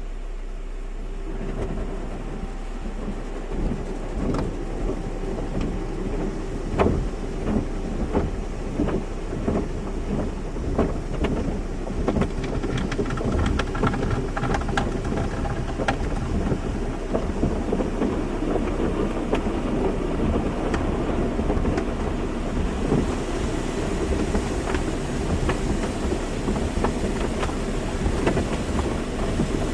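Automatic car wash running: water spray drumming on a car with frequent knocks and clatter over a steady low hum. A higher hiss of spray comes in during the last quarter.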